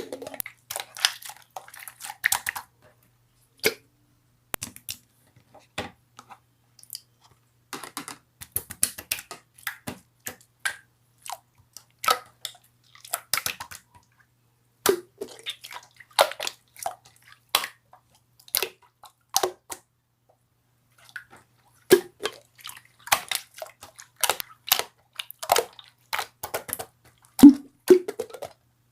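Slime being squeezed and poked by hand, giving irregular sticky clicks and pops as trapped air bursts, with the loudest pop near the end.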